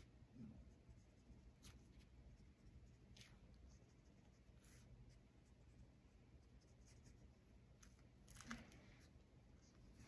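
Near silence: faint room hum with a few soft brush strokes and taps of a fine paintbrush on paper, the loudest about eight and a half seconds in.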